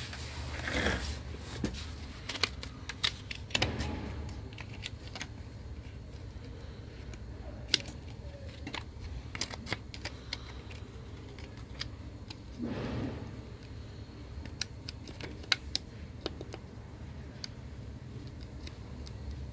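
Scattered small clicks and taps with a few brief rustling swishes, from fingers handling adhesive tape and a phone screen on the plates of a laminating press, over a low steady hum.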